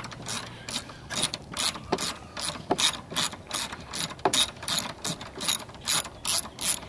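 Hand ratchet wrench clicking as it loosens a nut on a car seat's frame, a steady run of clicking strokes about three a second.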